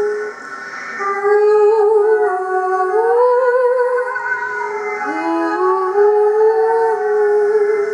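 A wordless sung voice holding long, high notes that drift slowly in pitch. It breaks off briefly just after the start, wavers about three seconds in, and swoops up from a lower note about five seconds in.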